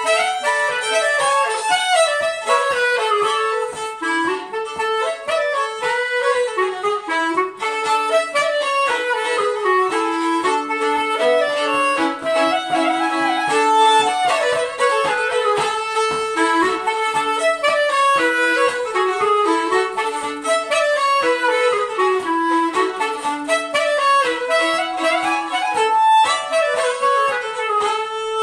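Fiddle and clarinet playing a lively polska together as a duet, the two melodic lines moving in quick running notes.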